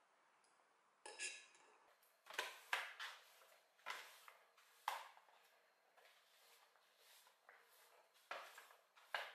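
Plastic broom swept across a wooden floor in short, brisk strokes, about half a dozen sharp swishes with pauses between them. There is a short clatter about a second in.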